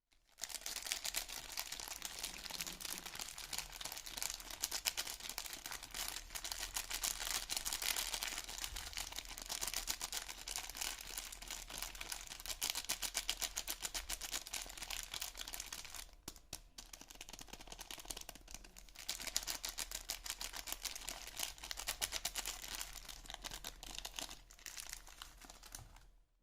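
Soap packaging being handled and unwrapped: a continuous dense crinkling and crackling of the wrapper, with a short lull about sixteen seconds in.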